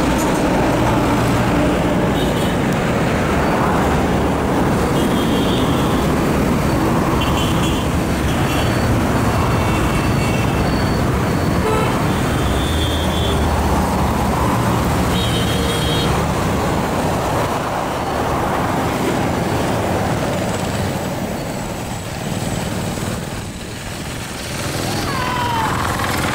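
Steady distant roar of an Airbus A330-243's Rolls-Royce Trent 700 jet engines as it lands and rolls out, mixed with road traffic noise and a few short vehicle horn toots.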